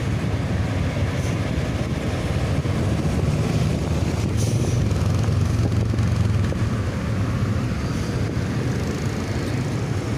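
Steady motor-vehicle engine and road noise: a continuous low hum under an even rush, with no horn sounding.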